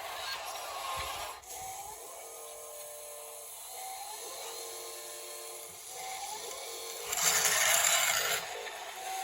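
Small electric motors of radio-controlled construction models whining, with short rises in pitch as they speed up. About seven seconds in, a louder hissing burst lasts just over a second.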